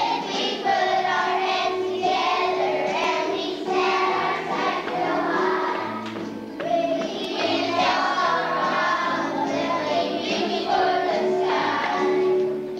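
A group of young children singing a song together, with musical accompaniment beneath the voices.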